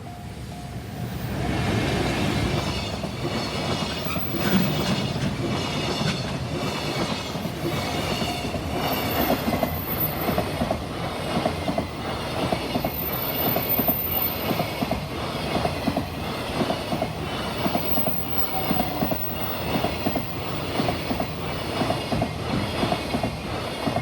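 A long train, most likely a freight train, passing close by at speed. Its wheels strike the rail joints in a steady clickety-clack rhythm for about twenty seconds after building up over the first two. A level crossing bell rings through it.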